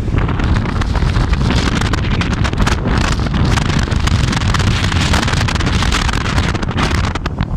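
Strong libeccio wind buffeting the microphone: a loud, continuous low rumble that flutters and surges with the gusts.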